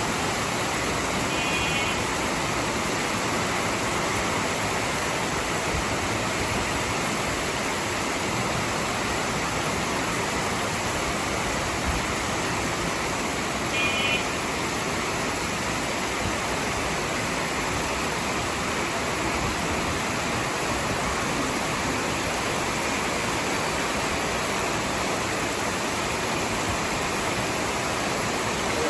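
Steady rain falling, an even hiss that does not change. Two brief high chirps come through, about a second and a half in and again about halfway.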